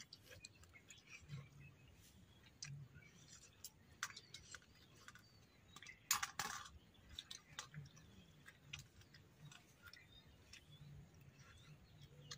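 Faint eating sounds: soft chewing with small clicks and one brief louder noise about six seconds in, and faint bird chirps behind.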